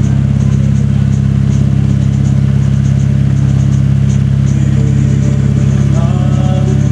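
Engine of a ten-and-a-quarter-inch gauge miniature railway locomotive running steadily as it hauls its carriages, a loud, even low drone.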